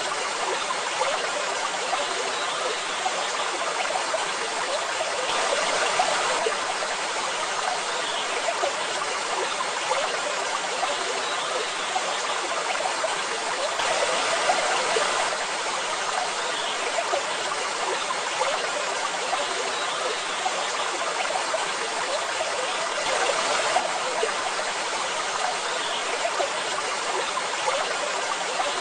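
Waterfall: a steady rush of splashing water, swelling slightly a few times.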